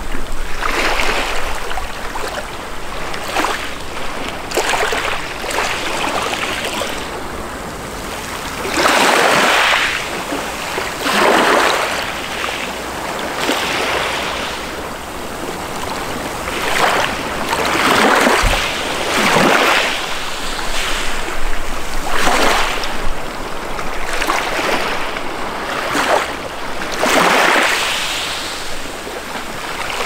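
Small sea waves washing up onto a pebble beach and running back, a rush of surf swelling every few seconds with some larger breaks among them.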